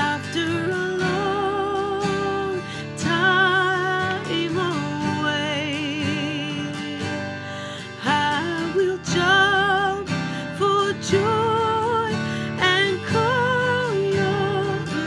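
Acoustic guitar strummed in chords, with a voice singing long wordless notes with vibrato over it, each held for one to two seconds.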